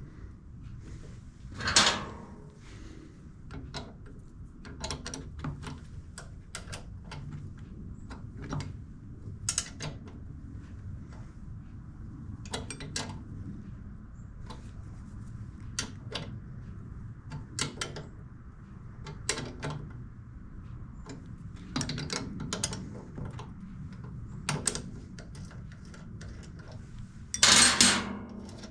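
Small metal parts and hand tools clicking and knocking as a small generator's carburetor is reassembled, scattered light clicks over a low steady hum. A louder clatter comes near the end.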